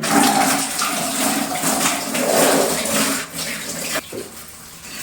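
Water splashing and running as laundry is rinsed by hand.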